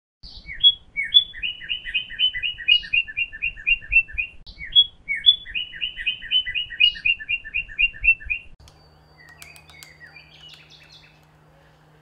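A songbird singing twice. Each song opens with a few clear notes, then runs into a fast, even trill of paired notes, about five a second. After about eight and a half seconds the singing stops, leaving only faint scattered chirps.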